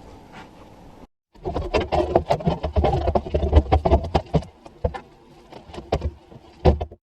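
Steel floor panel of a classic Mini being knocked and worked into place against the body, clanking and rattling: a dense run of sharp knocks for about three seconds, then scattered knocks with one loud one near the end.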